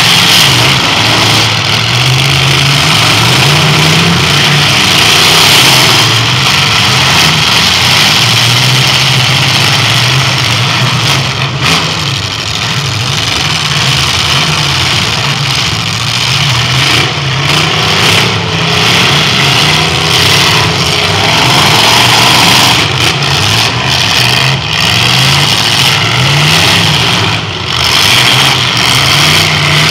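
Several demolition-derby cars' engines running hard, loud and continuous, their revs rising and falling again and again as the cars spin their wheels and shove each other in the mud.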